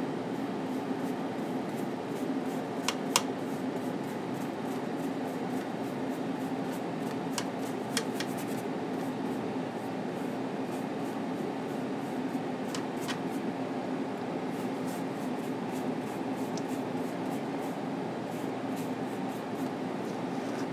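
Steady room noise: a low, constant hum under an even hiss, with a few brief faint clicks about 3, 8 and 13 seconds in.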